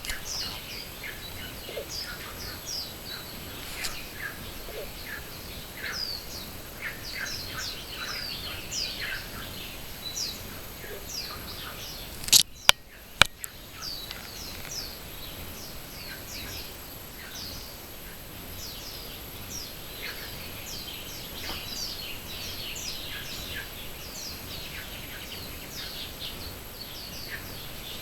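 Many small birds chirping together in a morning chorus: short, quick, falling chirps overlapping without pause. A few sharp knocks sound about twelve and a half seconds in, and a thin, steady high tone runs underneath.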